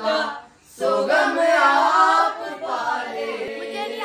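Several people singing together with no instruments, breaking off briefly about half a second in, then one long held note near the end.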